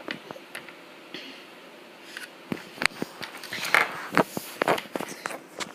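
A run of clicks, knocks and scrapes, denser in the second half, from small plastic Littlest Pet Shop figures being handled and set down.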